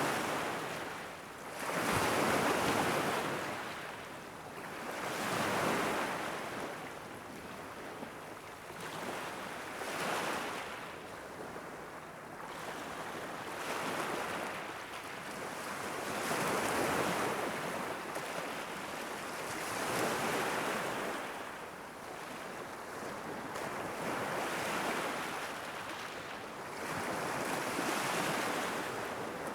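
Gentle sea waves lapping against a rocky shore, each wash swelling and fading every three to four seconds.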